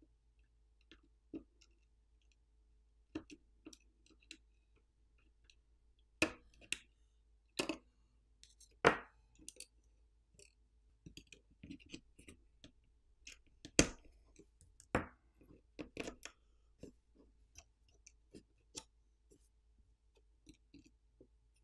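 Scattered small clicks, taps and scrapes of a metal pry tool and fingers working a metal bracket out of a smartphone's frame and peeling a flex cable, at irregular intervals, with a couple of sharper clicks around the middle.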